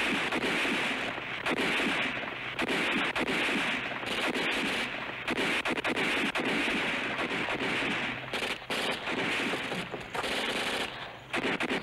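Sustained automatic gunfire in long bursts with several brief breaks.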